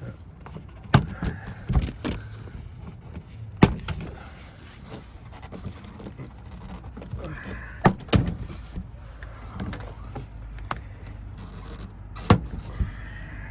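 Plastic car trim being handled and pulled loose: a series of sharp clicks and knocks, about six loud ones spread unevenly, over a low steady background.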